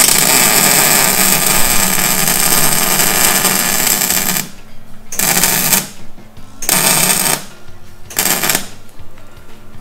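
Welding arc crackling as weld is built up on a broken-off exhaust stud to heat it and give a nut something to be welded to. One long burn of about four and a half seconds, then three short bursts.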